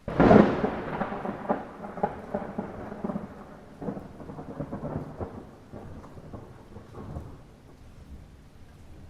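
A thunderclap in light rain: a sudden sharp crack right at the start, then a crackling rumble that dies away over the next seven seconds or so, with the soft hiss of rain beneath.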